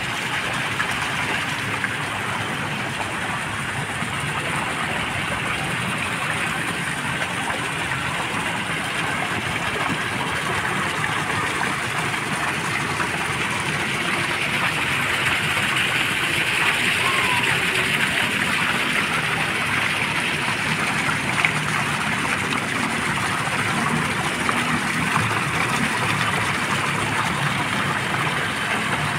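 Fountain jets arcing and splashing into a shallow pool: a steady rush of falling water.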